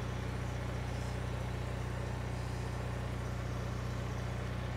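A steady, low mechanical hum from a running machine, with a fast, even flutter in it.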